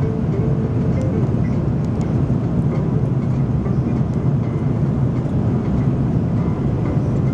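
Airbus A330 cabin noise during the approach: a steady, even drone of the engines and airflow, deep and rumbling.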